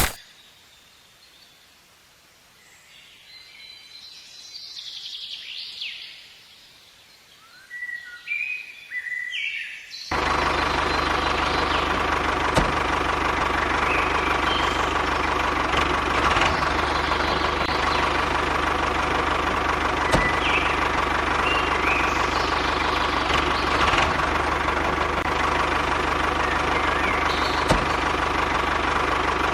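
Faint, short high chirps over quiet at first. About ten seconds in, a small machine's motor starts abruptly and runs steadily with a constant whine and hum, with a few light clicks.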